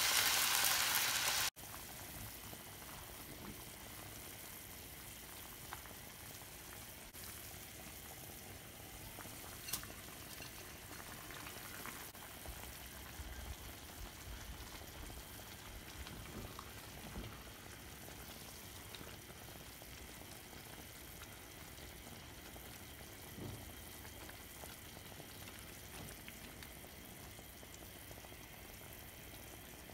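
Water pouring from a jug into a hot pan of sautéed onions and vegetables, cutting off abruptly about a second and a half in. Then the pot's faint steady simmer as it comes to the boil, with a few light knocks of a silicone spatula stirring in the rice.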